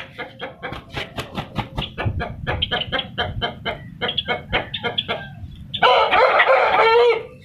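Aseel chickens clucking in a fast, steady run of short calls. About six seconds in, a rooster crows once, briefly and loudly.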